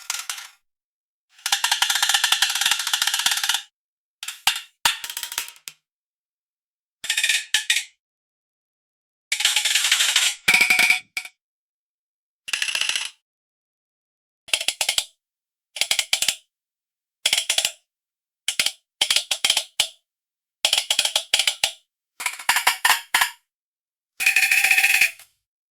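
Cooking pans and metal utensils clattering and clanking in about a dozen separate bursts, each half a second to two seconds long, with dead silence between them. Some clanks ring on briefly with a clear metallic tone.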